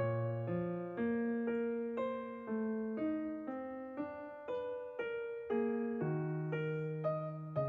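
Background music: a calm piano tune, notes struck about twice a second.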